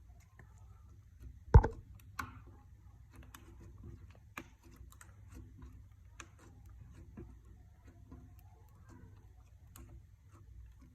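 Clear slime being stirred and pressed, making small sticky clicks and pops, with a sharp knock about a second and a half in.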